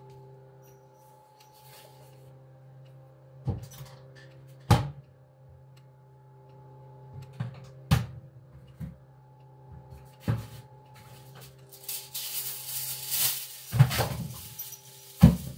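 A handful of sharp knocks and clunks over a steady low hum, then in the last few seconds the loud crinkling of aluminium foil being pulled off the roll, with a final clack.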